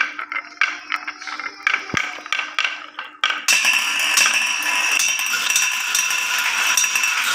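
Glass marbles rolling down a wooden zigzag marble run, clicking sharply against the wooden track and against each other. About three and a half seconds in, the separate clicks give way to a dense, continuous clatter.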